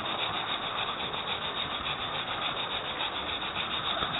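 Model train running along its track, heard from a webcam riding in a wagon: a steady rubbing rumble of wheels on rail and the locomotive's drive, with a fast, even pulsing.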